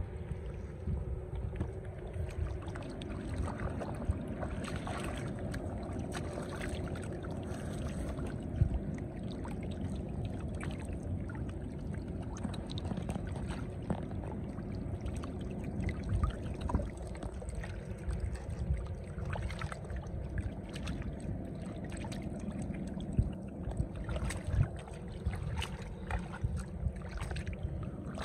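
Hands splashing and sloshing through shallow muddy water, with irregular small splashes and squelches as a fisherman gropes for catfish trapped in the pool, over a steady low rumble.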